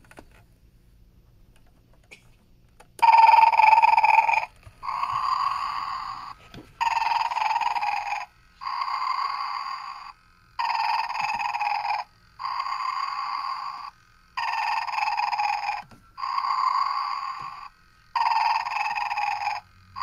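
Animated Santa figure's recorded snoring, starting about three seconds in and repeating steadily, about one snore every two seconds, alternating louder and softer breaths.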